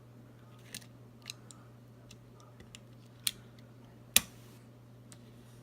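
Scattered sharp clicks and taps from handling a Streamlight TLR-6 weapon light and its batteries during assembly. There are about six clicks, and the loudest is a snap about four seconds in.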